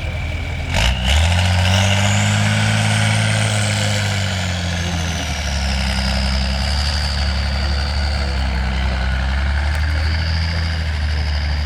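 Competition trial truck's engine: a knock about a second in, then the engine revs up and holds for a few seconds before settling back to a lower, steady running note. A high whine rises with the revs and falls away slowly.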